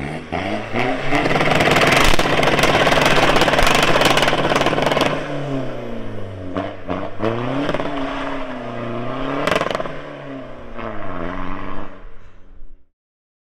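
A car engine revving hard: a loud, sustained high-rev stretch with crackles for the first few seconds, then the revs rise and fall again and again. The sound cuts off suddenly near the end.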